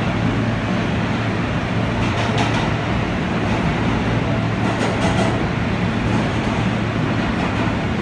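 R160 New York City subway train running: a steady even rail noise with a constant low hum, and faint short clicks about two and five seconds in.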